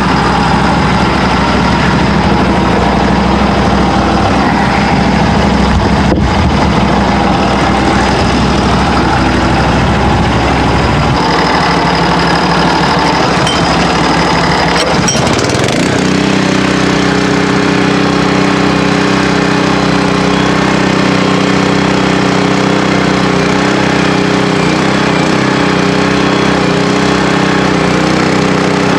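Norwood HD38 portable bandsaw mill's engine running steadily. About halfway through its sound shifts with a short change in pitch, then settles into an even, steady drone.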